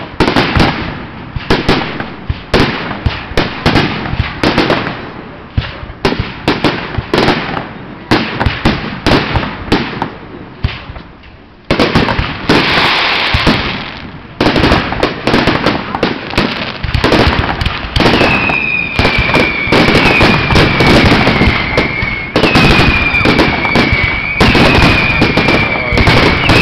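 Professional fireworks display: a rapid, dense barrage of aerial shell bangs and crackle, with a rushing hiss about halfway through. In the last third a high whistling tone sounds again and again over the bangs.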